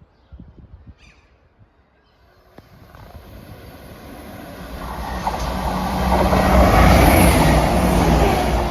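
ScotRail Class 170 Turbostar diesel multiple unit passing through the station. Its rumble builds from about two seconds in and is loudest near the end, with a low steady engine tone under it.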